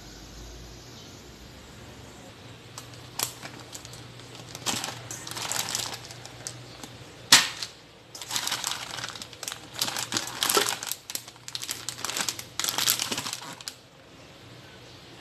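Plastic packaging crinkling and rustling in irregular bursts as a packet of fish balls is handled, with one sharp click about seven seconds in, the loudest moment.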